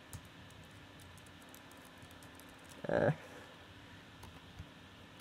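Faint clicking of a MacBook's keyboard and trackpad as several files are selected one by one, with one louder short sound about three seconds in.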